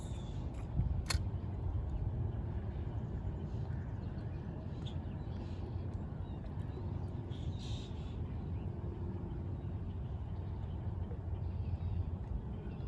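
Outdoor ambience: a steady low rumble with a few faint bird calls, and a single sharp click about a second in.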